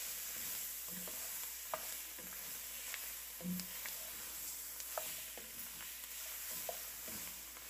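Diced celery, bell pepper and onion sizzling in hot roux in a ceramic Dutch oven, the Holy Trinity just added for gumbo, while a wooden spatula stirs them, scraping and clicking against the pot now and then.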